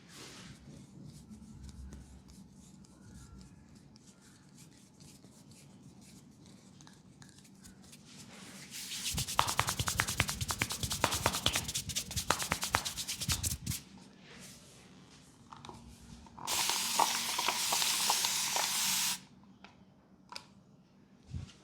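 Hands rubbing fast over skin in a massage: a dense run of quick friction strokes for about five seconds, then after a short pause a steady rubbing hiss for nearly three seconds.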